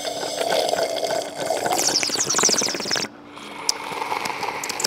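Water sloshing and pouring as mouthfuls are taken from a drinking glass and a plastic pitcher, with a rising rush about two seconds in. The sound drops off abruptly about three seconds in.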